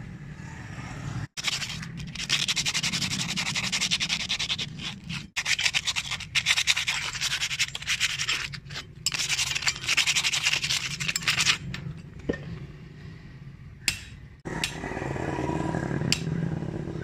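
Rusty steel blade of a pair of pruning shears being scrubbed by hand to take off the rust: rapid back-and-forth scraping in long spells with short breaks, stopping about two-thirds of the way through. A couple of light clinks follow, then a softer spell of rubbing near the end.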